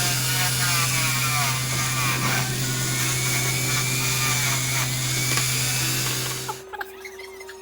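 Small electric power tool polishing a carburetor part, running steadily with a strong hum and hiss, then switched off about six and a half seconds in.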